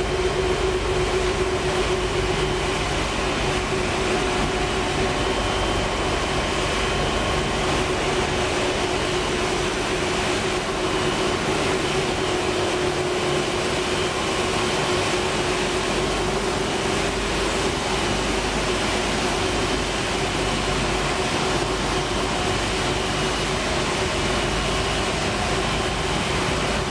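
Steady drone of a dog food production line's machinery running: one constant hum over an even rushing noise, with no change in level.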